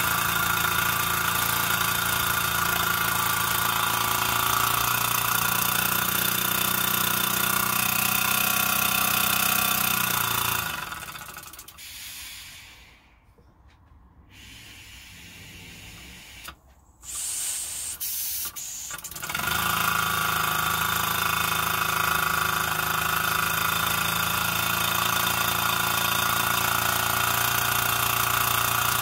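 Scratch-built model steam engine running on compressed air from a small compressor, a steady mechanical running sound. About eleven seconds in it slows and dies away over a couple of seconds, leaving a much quieter stretch with a few small clicks. It starts up again abruptly about twenty seconds in and keeps running steadily.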